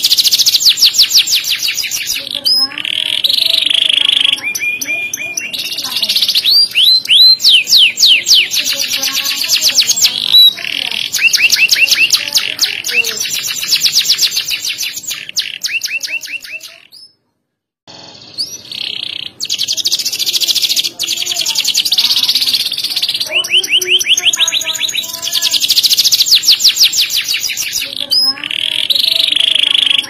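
Domestic canary singing a long, loud song of rapid trills and quickly repeated notes, with varied phrases one after another; the song breaks off for about a second around halfway through, then resumes.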